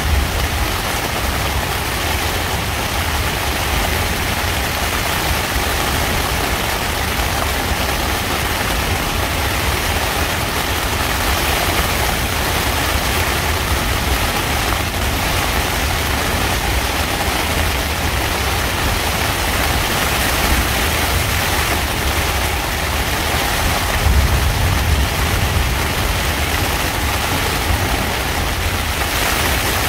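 Thunderstorm rain falling hard on a tent's fabric: a steady, even hiss with a low rumble underneath that swells slightly now and then.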